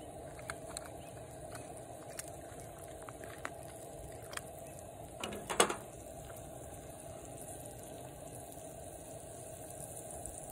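A glass pot lid set down onto a pan of simmering seafood: a short clatter and clink about five and a half seconds in. A camp stove burner runs steadily underneath, with a few scattered small ticks.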